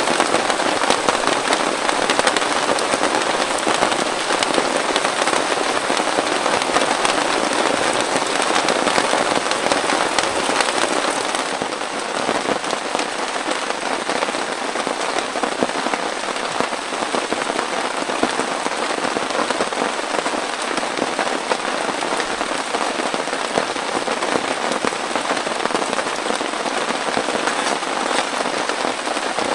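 Heavy rain falling steadily, a dense patter of drops hitting close by; it eases slightly about twelve seconds in.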